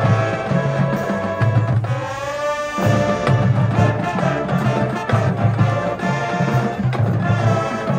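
High school marching band playing brass and percussion. About two seconds in, the low end drops out briefly under a rising glide, then the full band comes back in.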